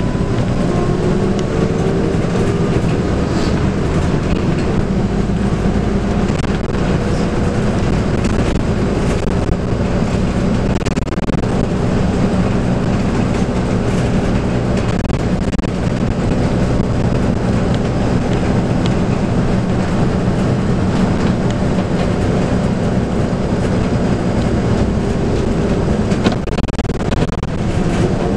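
Inside the cabin of a Scania K280UB bus on the move: the 9.3-litre five-cylinder Scania DC9 diesel runs steadily under way, over a constant rumble of road and body noise. The engine note rises near the start.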